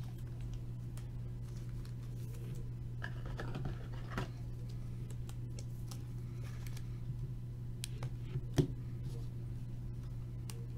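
Trading cards being handled and flipped through: soft rustling and small sharp clicks, with a burst of rustling about three to four seconds in and a distinct click near eight and a half seconds, over a steady low hum.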